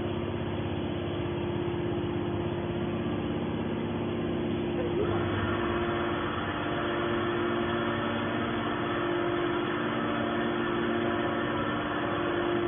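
Hydraulic scrap-metal baler running: the steady hum of its hydraulic power unit, joined about five seconds in by a higher, steady layer of machine noise.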